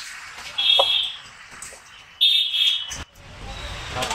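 A steel bowl squeaking twice, short and high-pitched, as it is pushed and turned against the counter while a paratha filling is mixed in it by hand. A sharp click about three seconds in, then a low rumble of street noise.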